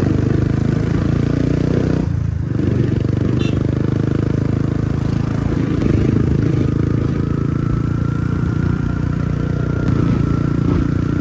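Motorcycle engine running steadily under way, with the note dropping briefly about two seconds in, as at a gear change or a lift of the throttle. A faint high whine joins about halfway through.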